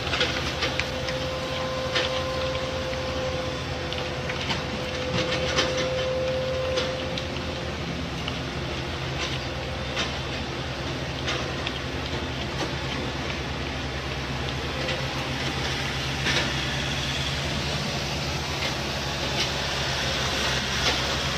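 Heavy diesel machinery running steadily, with scattered metallic clanks and clicks over the engine hum and a faint whine in the first few seconds.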